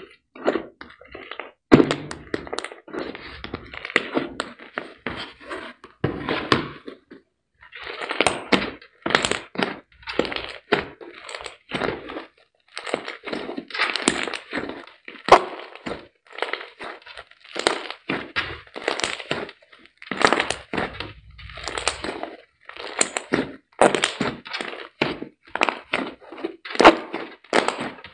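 Hands squishing, kneading and pressing a thick slime, in irregular bursts of squelching with sharp crackling pops.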